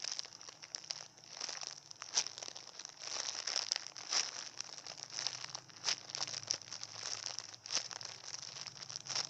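Plastic crinkling and rustling in short, irregular crackles as a foam squishy toy is handled and squeezed.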